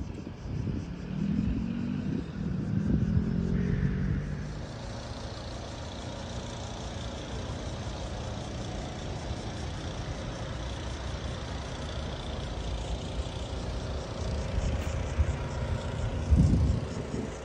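Outdoor city ambience: a steady hum of distant road traffic, louder for a few seconds near the start, with a low rumble near the end.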